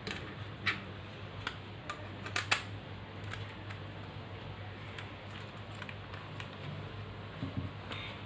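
Scattered small plastic clicks and taps from handling a spring-loaded plastic phone clamp as a smartphone is fitted into it, the loudest pair of clicks about two and a half seconds in, over a steady low hum.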